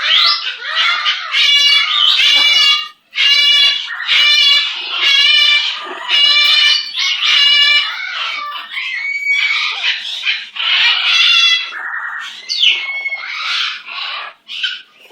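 Pet parrot making a long run of loud, buzzy chattering calls in quick succession, with a few rising whistle-like calls in the second half.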